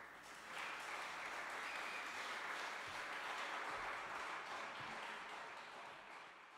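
Concert audience applauding: the clapping starts suddenly, swells within the first second, holds steady, then tapers off near the end.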